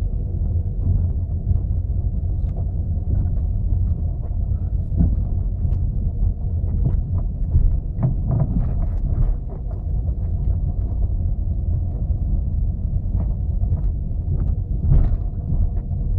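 Ford Focus 3 steering rack knocking: irregular dull knocks over a steady low rumble from the moving car, a sign of a worn steering rack.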